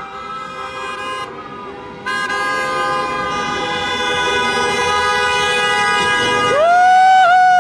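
Car horns honking in long, steady blasts from passing cars, several overlapping, in celebratory honking. A short blast opens, a long one starts about two seconds in, and the loudest blast sounds near the end.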